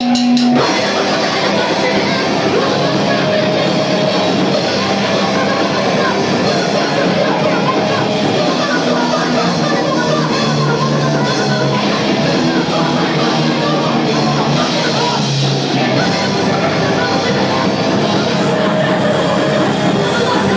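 Live heavy rock band playing loud: distorted electric guitars and a drum kit, with a vocalist singing into the microphone.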